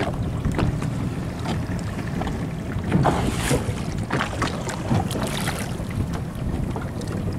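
Wind buffeting the microphone on open sea, with water washing against a small boat's hull. A few brief splashes and knocks come through the middle, the strongest about three seconds in.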